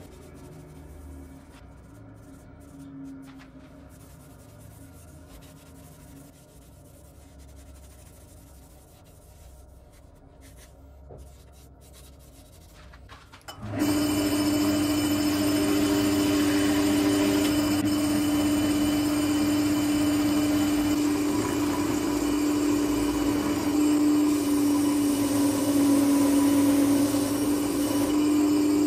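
Wood lathe spinning a wooden vase while it is sanded by hand. The first half is faint: a low hum while a pad is pressed against the turning wood. About halfway through it turns much louder, a steady machine hum with the rubbing hiss of sandpaper on the spinning wood.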